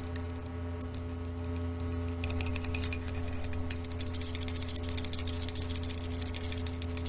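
Comic sound effect of a strong magnet drawing near: a steady low electric hum under rapid metallic clicking and rattling that grows busier about halfway through, with a faint high whine joining from about four seconds in.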